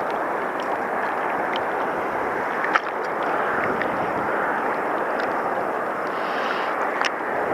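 Steady rushing seashore noise of wind and water, with a couple of short sharp clicks, one about three seconds in and one near the end.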